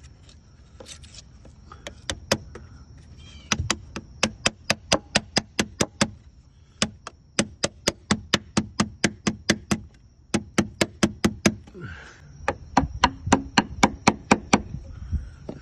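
Rapid light hammer taps, about four or five a second, in several runs with short pauses. They are driving quarters into the 3M 5200 sealant joint under the flange of an Airmar B60 transducer, the coin method of breaking the bond so the transducer will come loose.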